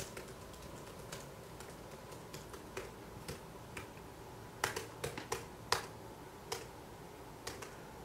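Typing and clicking on a MacBook laptop's keyboard and trackpad: scattered soft key clicks, with a quick run of louder keystrokes about halfway through.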